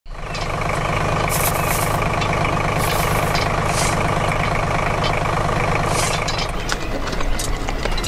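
Heavy diesel engine idling steadily, with several short bursts of hissing. About six and a half seconds in, the steady running gives way to a rougher clatter.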